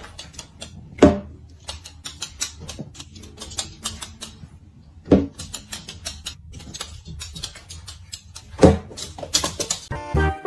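Rapid, irregular clicking and tapping, with three louder knocks about a second in, about five seconds in and near the end.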